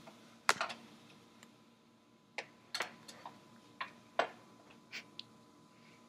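Light, scattered clicks and taps of a metal fork against an electric pizzelle iron, about eight in irregular rhythm.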